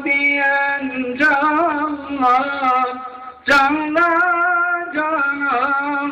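A solo man's voice chanting an Islamic religious recitation, unaccompanied, in long ornamented phrases that waver around each held note. New phrases begin about a second in and again halfway through.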